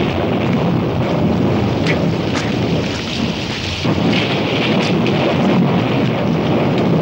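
Heavy rain pouring down in a storm: a dense, steady hiss of rain over a continuous low rumble, with a few sharp spatters.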